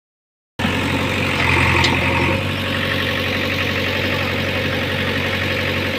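JCB 3DX backhoe loader's diesel engine running steadily, starting about half a second in. A brief higher-pitched sound sits over it between about one and a half and two and a half seconds in.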